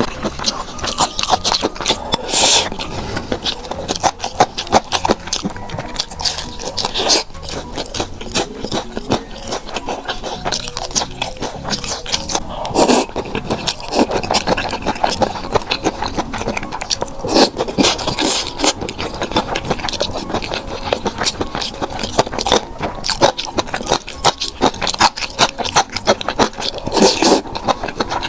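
Close-miked eating sounds: a person chewing food, with dense sharp clicks and crackles from the mouth and food throughout.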